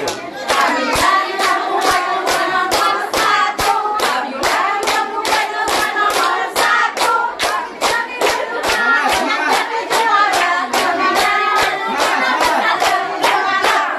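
A group of women singing together while clapping their hands in a steady beat, about three claps a second.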